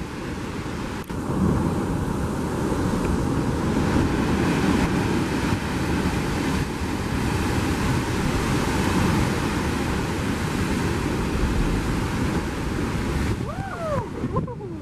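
Heavy ocean surf surging and churning in a narrow rock chasm below the cliffs, a loud steady wash of breaking water, with wind buffeting the microphone.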